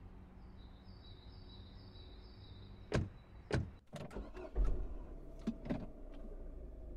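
Two car doors shut with thuds about three seconds in, then the ignition key turns and a small hatchback's engine starts with a low rumble about four and a half seconds in and keeps running at idle.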